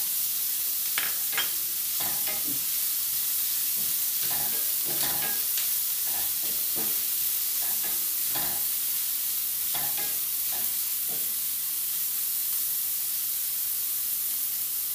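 Onion, garlic, ginger and pork belly sizzling in oil in a nonstick frying pan, stirred with a wooden spatula that scrapes and taps the pan about once a second. The stirring stops near the end, leaving the steady sizzle.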